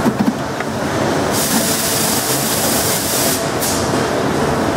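Small injection moulding machine running amid steady factory machinery noise, with a hiss of air lasting about two seconds starting just over a second in and another short hiss right after.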